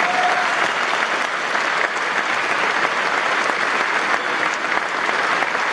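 Audience applauding steadily, a dense mass of handclaps.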